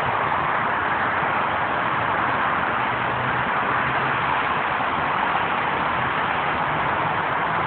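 Steady road and engine noise from inside a moving car's cabin: an even rush with a faint low hum underneath.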